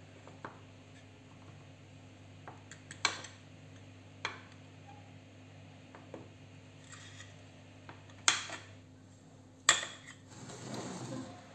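Scattered sharp clicks and knocks of a hand-held cutting tool against a glass baking dish while lines are scored into a tray of layered filo pastry, with the two loudest knocks a few seconds before the end. A short scraping rustle follows near the end.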